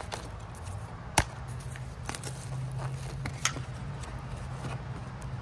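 Tube of refrigerated cinnamon-roll dough being opened and handled: a sharp snap about a second in, then a few lighter clicks and rustles.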